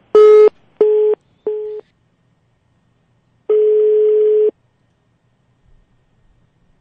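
Telephone line tones heard over a phone call: three short beeps in quick succession, then a single steady ringback tone about a second long. The called number is ringing with no answer.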